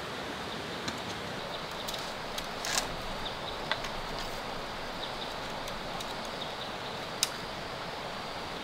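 Bamboo strips clicking and knocking a few times as a long bamboo slat is handled and fitted between bamboo posts, over a steady background hiss.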